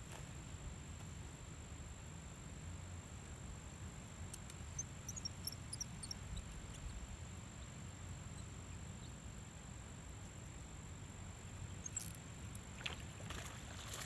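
Faint outdoor river-bank ambience: a steady low rumble under a thin, steady high-pitched insect drone. A few faint high chirps come about five seconds in, and a few light clicks near the end.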